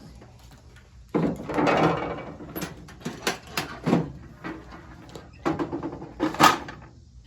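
Tools and objects being handled and moved around: a scraping rustle about a second in, then a series of sharp knocks and clanks, the loudest near the end.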